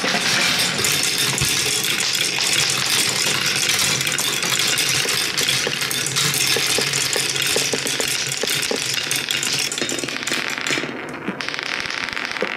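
Many small plastic balls rolling and clattering through a marble run of plastic tubes, a plastic funnel and wooden tracks: a dense, continuous rattle of clicks. Near the end it thins to fewer, separate knocks as the balls hop along a wooden wave track.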